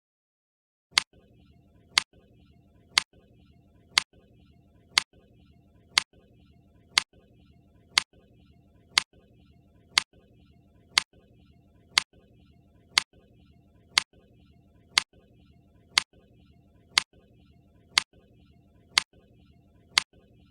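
Countdown-timer tick sound effect: a sharp tick once every second, about twenty in a row.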